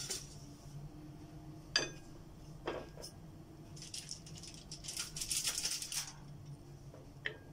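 A metal utensil clinks against a sheet pan and a plate as baked chicken wings are moved off crinkly aluminium foil: one sharp ringing clink a couple of seconds in, a few softer knocks, and a rustle of foil about five seconds in, over a steady low hum.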